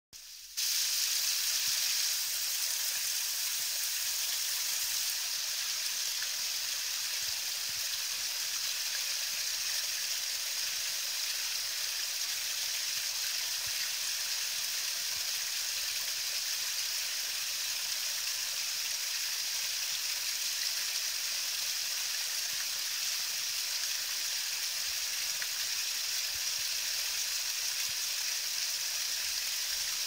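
Small creek waterfall pouring steadily over a rock ledge into a shallow pool: a continuous, even hiss and splash of falling water.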